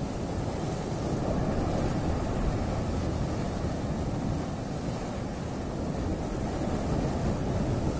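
Sea surf washing steadily over shoreline rocks, with wind on the microphone.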